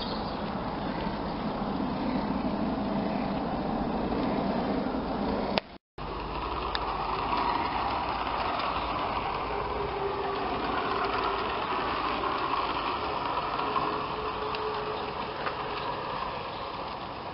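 Battery-electric Gauge 3 model locomotive, a GWR pannier tank, running along outdoor track: the steady hum and rumble of its electric motor, gears and wheels on the rails. The sound cuts out briefly about six seconds in, then carries on.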